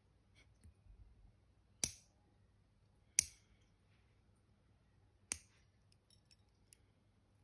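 Toenail clipper snapping shut through toenails: three sharp clicks, a second or two apart, with faint small ticks between.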